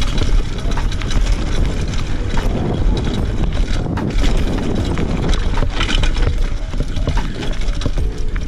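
Fuji Addy One.5 mountain bike running fast down a rough dirt trail: a steady wind rumble on the microphone with the tyres rolling over dirt and stones, and the chain and frame clattering and clicking over the bumps.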